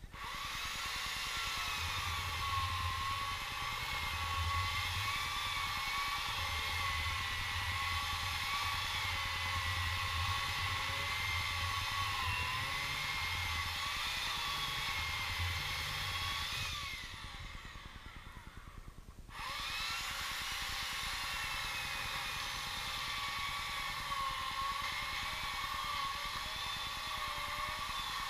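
A high, steady mechanical whine from a running motor, its pitch wavering slightly. It fades out for about two seconds around two-thirds of the way through, then starts again suddenly.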